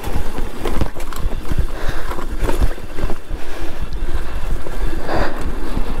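Loud wind buffeting and rumble on the microphone, with irregular knocks and rattles from a Super73 S2 e-bike jolting over a rough dirt trail.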